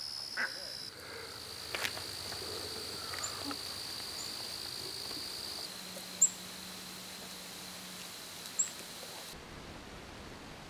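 Crickets trilling steadily, with a few short, high chirps over them; the trill cuts off suddenly near the end.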